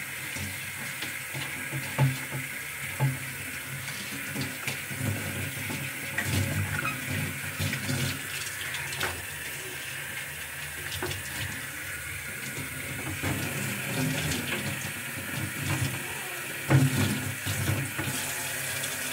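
Kitchen tap running steadily into a sink while a glass refrigerator shelf in a white plastic frame is scrubbed and rinsed under it, with a few sharp knocks as it is handled, the loudest near the end.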